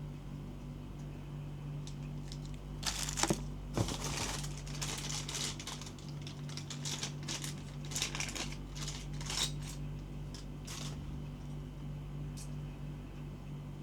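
Packaging crinkling and rustling in irregular clusters of crackles as it is handled and pulled apart, from about three seconds in until about eleven seconds, over a steady low hum.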